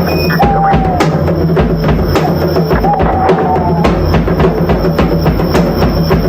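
Drum kit solo: rapid, dense drum strikes throughout, with two brief whistle-like tones laid over the playing.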